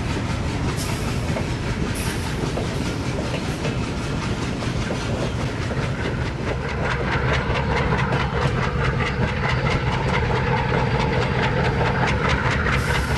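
WDM-3D diesel-electric locomotive running, a steady low engine drone with a fast, regular clatter over it. Short high hisses come about a second in, again at two seconds and near the end. The sound grows louder about seven seconds in.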